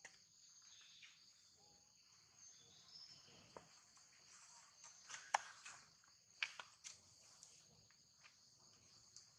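Faint, steady high-pitched chirring of insects, with a few sharp clicks, the loudest about five seconds in.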